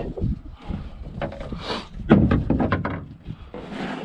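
Thumps, knocks and scraping as a plastic water cooler is handled and shifted about in a pickup truck bed, with the loudest thump about two seconds in.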